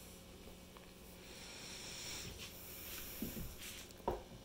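Faint handling noise, then a single short knock about four seconds in as a drinking horn in its metal stand is set down on a wooden side table.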